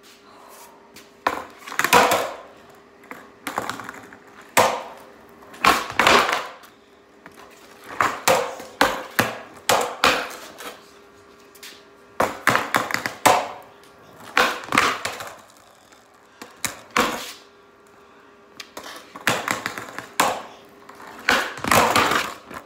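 Skateboard on a concrete floor during kickflip attempts: many sharp wooden clacks and knocks in irregular clusters as the deck is popped, flipped and slapped down and the wheels land. A faint steady hum runs underneath.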